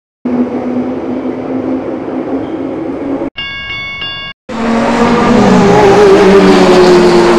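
Added sound effects cut one after another: a steady engine-like hum for about three seconds, a second of a railroad crossing bell ringing in a quick repeating pattern, then a loud race car engine whose pitch slides and then holds steady.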